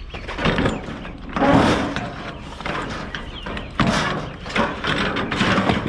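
Irregular bangs, thuds and scrapes of scrap items, curbside chairs among them, being handled and loaded onto a trailer.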